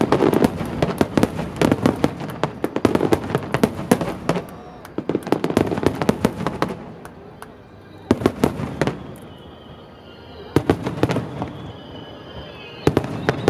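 Fireworks starmine: a dense barrage of aerial shells bursting in rapid succession, with many bangs overlapping. After about six seconds it thins to separate volleys of bangs a couple of seconds apart.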